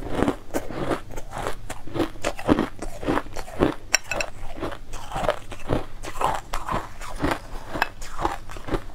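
Purple crushed ice being bitten and chewed, a quick, irregular run of crisp crunches, several a second.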